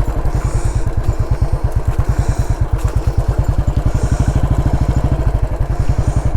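Motorcycle engine running at a steady low speed while being ridden, with a rapid, even beat of exhaust pulses.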